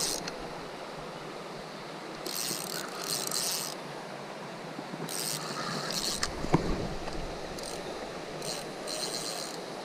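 A spinning fishing reel buzzing in several short bursts, drag slipping or line being wound in, while a hooked carp is played, with one sharp click about six and a half seconds in.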